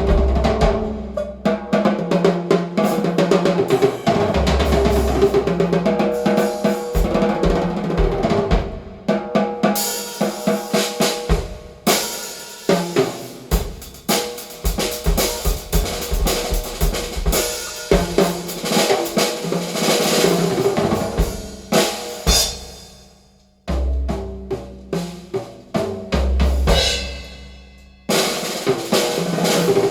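Drum-kit percussion track, with snare, deep bass drum and cymbal crashes, played loud through a home speaker system of midwoofers, Heil AMT tweeters and REL subwoofers. The drums fade out briefly about two-thirds of the way through and come back in with heavy bass-drum hits.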